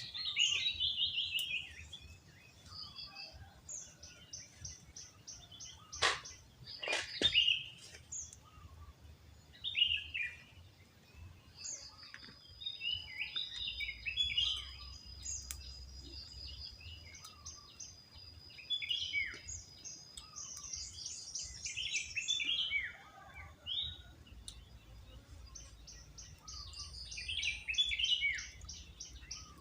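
Several birds chirping and trilling with short, varied calls, and a thin steady high tone held for about eight seconds in the middle. Two sharp clicks come about six and seven seconds in.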